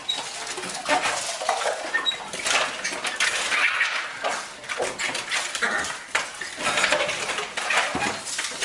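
Metal flap of a door mail slot clattering and rattling as mail is pushed through, with paper rustling, in quick irregular clinks.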